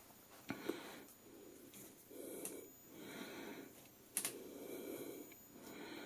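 A person breathing heavily close to the microphone, about five slow breaths, while a camera lens is handled and set on the case's foam lining, giving a few light clicks and knocks; the sharpest knock comes about four seconds in.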